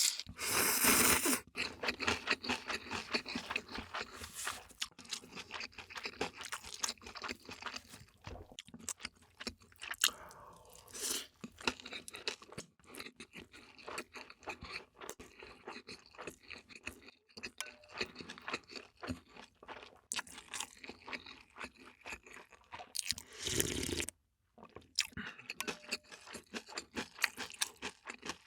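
Close-miked eating sounds: crunchy bites and wet chewing, irregular and continuous, with a couple of louder bursts of noise about a second in and near the end.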